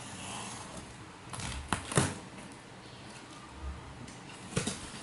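A cardboard shipping box being opened by hand: rustling and scraping on the cardboard, with a few sharp clicks and taps, the loudest about two seconds in and another pair near the end.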